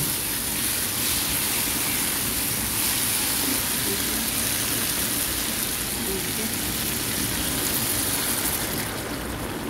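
Beef and mushrooms sizzling in a hot nonstick frying pan, a steady hissing sizzle, with water poured into the pan late on. The hiss thins out near the end as the water goes in.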